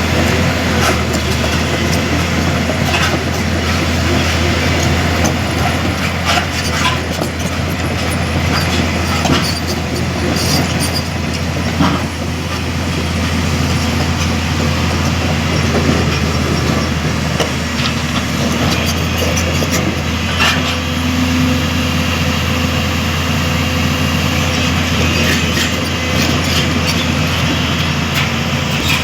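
An excavator's diesel engine running steadily with a constant low drone, and scattered metallic clanks and knocks throughout.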